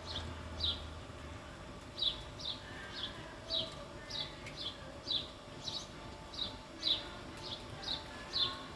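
A bird chirping over and over: short, high chirps that fall in pitch, about two a second, with a brief pause about a second in.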